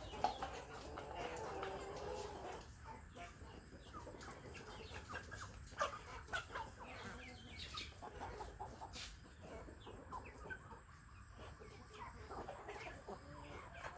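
Chickens clucking, many short calls scattered throughout, with a longer drawn-out call in the first couple of seconds.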